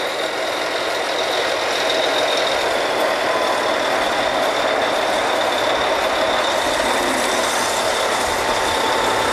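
Drilling rig machinery running during drilling: a loud, even mechanical din with a steady high whine through it.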